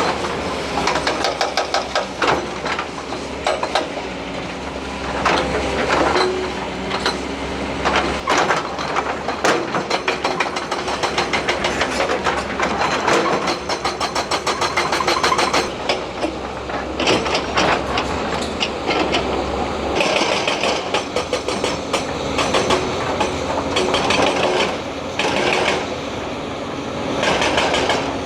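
Heavy hydraulic excavators working stone: a diesel engine drones steadily under many irregular clanks and knocks of steel and rock. The sound changes about sixteen seconds in as the work moves from breaking stone to loading a truck.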